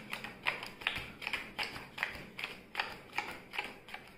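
Playing cards dealt fast into three piles, each card landing with a light snap on the cloth-covered table, about two or three a second in a steady rhythm.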